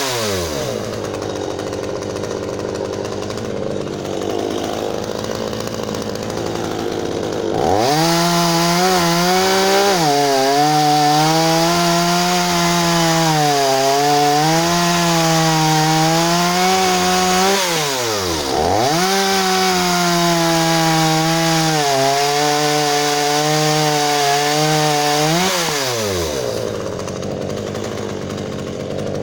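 A 36 cc two-stroke chainsaw running at full throttle with its pitch wavering under load, as when cutting wood. It drops back to a lower idle at the start, dips sharply once about halfway through and picks up again, and falls back near the end.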